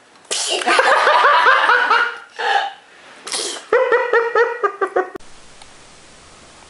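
Laughter in two runs of quick, rhythmic 'ha-ha' pulses, with two short breathy gasps between them. It cuts off abruptly a little after five seconds.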